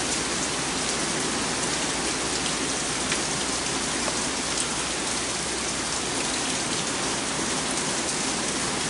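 Heavy rain pouring down steadily, with a few single drips ticking through it.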